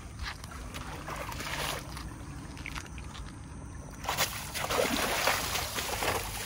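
Feet and hands splashing and sloshing through shallow stream water; about four seconds in the splashing gets much louder as the wader strides through, kicking up spray.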